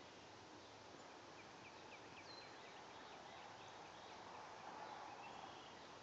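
Near-silent woodland quiet with a faint bird giving a quick run of short high chirps about a second and a half in. A soft hiss swells and fades near the end.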